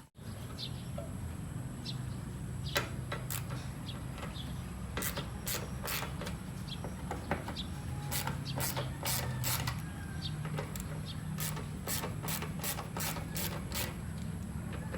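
Hand tools working on a car's engine parts: irregular sharp metallic clicks, some in quick runs of several a second, over a low steady hum.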